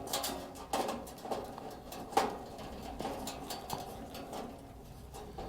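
Light clicks and taps of small metal parts being handled as a screw is refitted through the propane hose clip on the back of a portable grill, with one sharper click about two seconds in.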